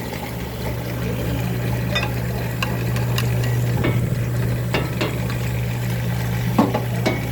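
Flour machine running with a steady low hum, under a rustling noise and a few sharp clicks and knocks.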